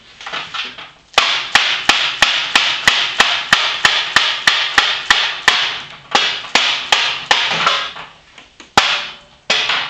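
Hammer blows driving a part into a joint of a metal leg frame, a fast even run of about three blows a second, then a few more after a short pause and one last, hardest blow near the end.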